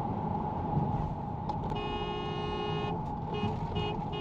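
Vehicle horn: one long honk of a little over a second, then three short quick toots near the end, over a steady rumble of road and engine noise.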